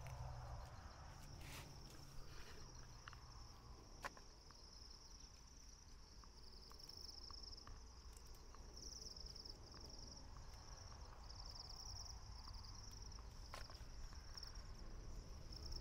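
Faint, steady high-pitched insect chirring in the field, swelling in pulsing stretches in the second half, with a couple of sharp clicks.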